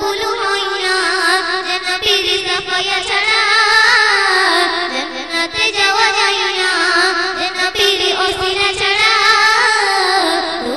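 A girl singing a Bengali Islamic devotional song (gojol) into a handheld microphone, in a continuous, ornamented melody with wavering pitch.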